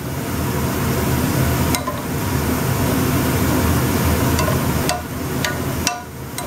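Sliced onions and mushrooms sizzling in a pan of red wine and mushroom juice as they sweat down, while a spatula stirs and scrapes through them, clacking against the pan several times, mostly near the end.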